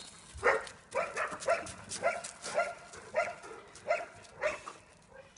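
Dog giving a string of short barks, about two a second and unevenly spaced.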